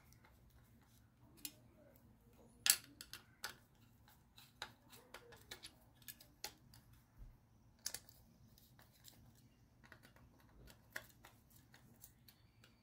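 Faint, scattered clicks and light knocks of a small part being handled and twisted into place by hand, the sharpest about two and a half seconds in and another near eight seconds.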